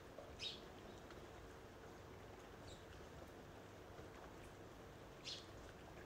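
Faint steady hiss of rain falling outside, with two short, high bird chirps, one about half a second in and one near the end.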